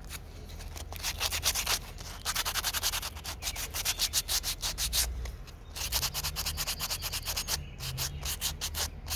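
Quick, repeated rubbing and scraping strokes of a hand tool against a small sugar-pine carving, in several runs broken by short pauses.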